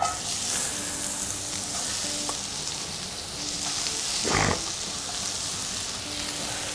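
Sliced onions sizzling in a hot frying pan as they go in and are stirred with a metal spoon, a steady sizzle with faint ticks and one brief knock about four and a half seconds in.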